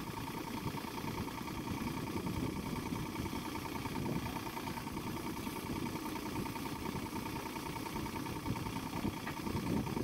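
Diesel engine of a John Deere 35D compact excavator running steadily while the arm and bucket are moved, with a faint steady whine over the engine noise.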